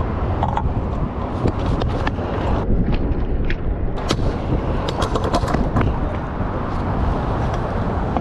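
Steady rumbling noise with scattered sharp clacks and knocks, several close together around the middle: stunt scooter wheels rolling and decks knocking on skatepark concrete.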